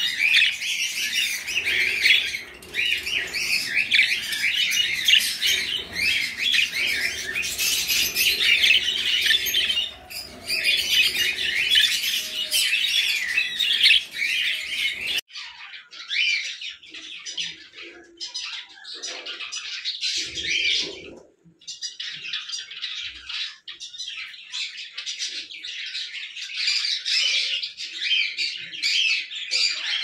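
Budgerigars chattering and warbling, a dense run of fast chirps and squawks. About halfway through it cuts abruptly to a thinner, quieter chatter with short gaps.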